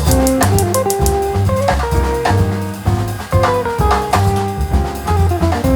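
Background music: a plucked guitar melody over bass and a drum kit with a steady beat.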